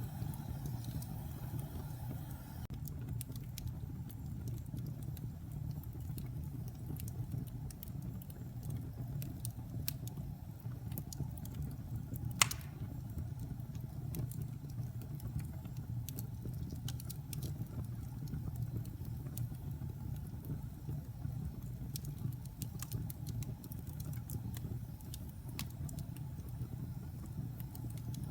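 Wood fire burning in a fireplace: a steady low rumble of flames with scattered light crackles, and one sharp, loud pop of the wood about twelve seconds in.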